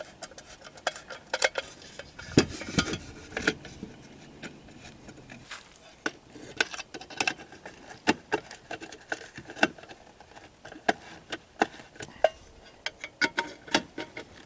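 Screwdriver driving 1/4-inch self-tapping bolts into the steel bottom plate of a Lee Production lead-melting pot: a run of irregular metallic clicks as the tip and bolt turn against the metal, with a denser cluster of knocks about two to three seconds in.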